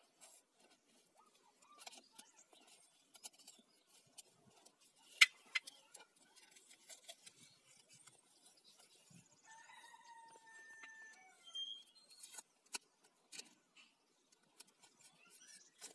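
Paper masking tape being wrapped around a spirit level and the body of a hammer drill: faint scattered crackles and handling clicks, with one sharper click about five seconds in and a few brief squeaks a little after the middle.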